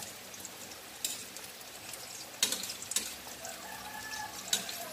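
Tofu frying in shallow coconut oil in a pan, with a steady sizzle and crackle. Metal tongs click sharply against the pan about four times as the pieces are turned.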